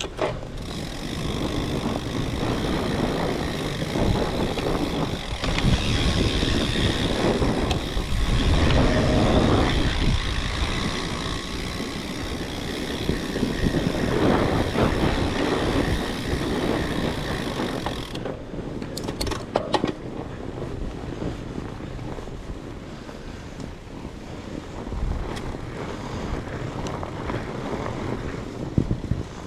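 Wind buffeting the action camera's microphone, with the rumble of a fat bike's tyres and drivetrain on the trail. It eases off about two thirds of the way in, with a few sharp clicks.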